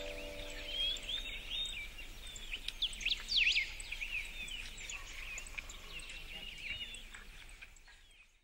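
Many small birds chirping and twittering together in dense, quick calls, fading out near the end. A held chord from the music dies away in the first half-second.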